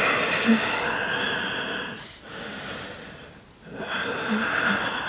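A woman breathing deeply and audibly while moving through a yoga pose, in long breaths of a second or two each.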